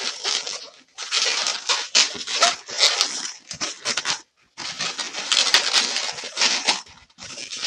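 Latex 260 modelling balloons squeaking and rubbing against each other in bursts as a pink bubble is twisted and locked into the middle of a joint, with short breaks about one, four and seven seconds in.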